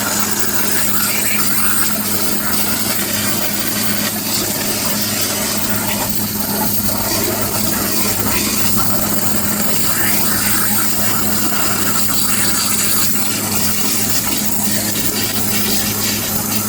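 Waterjet cutting machine cutting silicone: a loud, steady hiss of the high-pressure water jet over a constant low machine hum.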